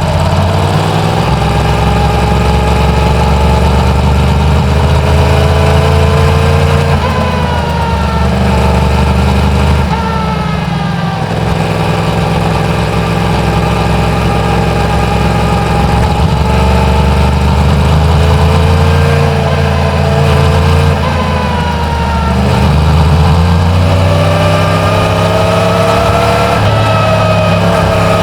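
Yamaha MT-10's crossplane inline-four engine on its stock exhaust, ridden in traffic. Its pitch climbs under throttle and drops sharply at gear changes about seven and ten seconds in, then eases off around twenty seconds in and pulls up again a few seconds later.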